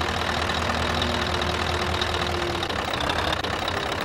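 Scania S620's 16-litre V8 diesel engine idling steadily, heard up close from the open engine bay with the cab tilted forward.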